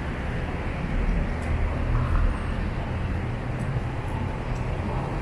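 City street traffic: a steady low rumble of passing cars, swelling a little a second or two in.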